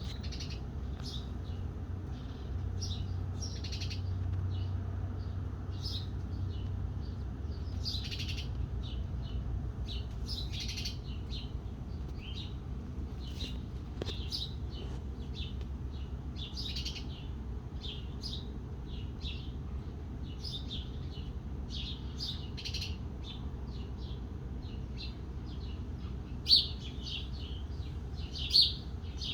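Backyard birds chirping: many short, high chirps and tweets throughout, a few sharper and louder near the end, over a steady low background rumble.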